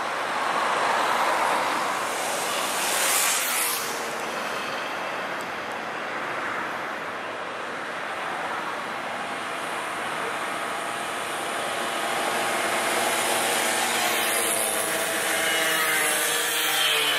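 Several vintage two-stroke mopeds riding past one after another, their small engines buzzing, growing louder as each one passes close.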